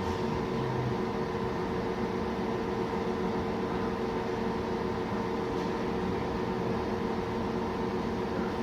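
Biotage Initiator+ microwave synthesizer running: a steady hum of fan noise with a couple of held tones, unchanging throughout.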